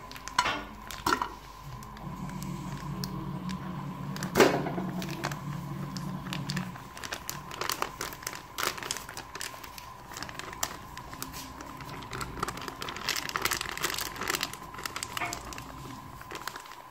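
Plastic pouch of solid cooking fat crinkling as it is squeezed and the fat is scooped out, with scattered clicks and knocks as lumps drop into an aluminium pressure cooker.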